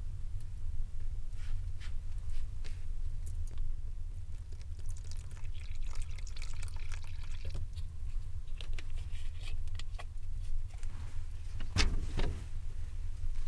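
Water poured from a plastic bottle into a hollow in a heap of flour, a steady trickle for a few seconds midway, with light handling clicks around it. A louder handling noise comes near the end, over a low steady hum.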